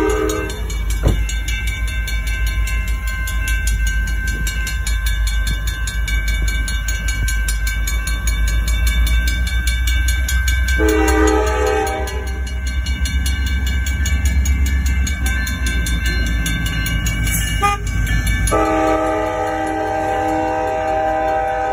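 Approaching CSX diesel locomotive sounding its horn in blasts: one cut off just at the start, a short one about halfway through, and a long one from about three-quarters of the way in. A steady low engine rumble builds underneath, and a grade-crossing warning bell rings throughout.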